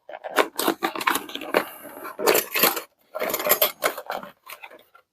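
Irregular clicks, clinks and short rattles of metal saw blades and plastic accessories being handled and lifted out of a hard plastic tool case.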